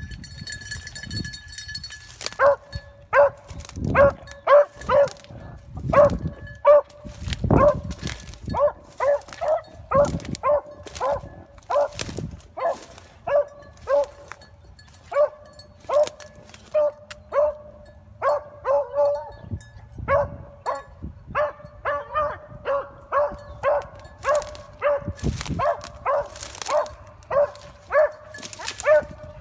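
A single beagle baying on a rabbit's scent trail: short, even-pitched barks repeating about twice a second, pausing briefly a few times. Dry brush crackles and swishes close by, louder than the barks at moments.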